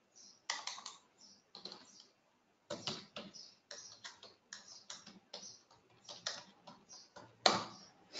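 Typing on a computer keyboard: a run of irregular keystrokes with a short pause partway, and one louder key press near the end.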